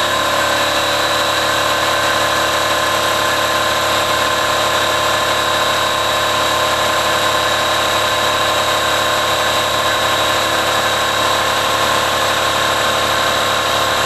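An electric motor-driven machine runs steadily at constant speed with a high whine.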